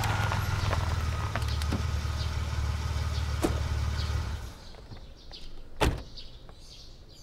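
Vintage car driving up with a steady low engine rumble and tyre noise that dies away about four and a half seconds in as it pulls up, followed by a single sharp thump, typical of a car door shutting.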